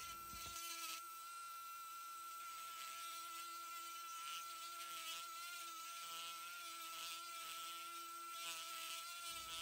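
Vintage Dremel 370 rotary tool running at a steady high-pitched whine while its ball burr grinds into pine wood, with a faint hiss from the cutting. The owner thinks a bearing in the tool is going out.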